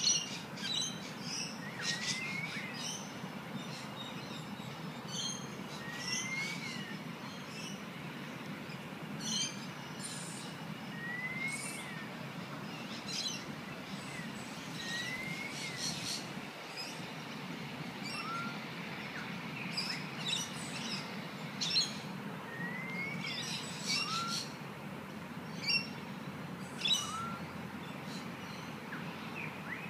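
Birds calling: a short whistled note that rises and falls, repeated every few seconds, among scattered brief high chirps, with a shorter rising whistle taking over in the later part. A steady low hum runs underneath.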